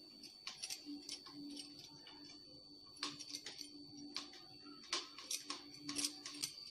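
Light, irregular clinking ticks from glass bangles on a moving wrist, several in quick runs, as dry fruits are dotted onto cake batter by hand.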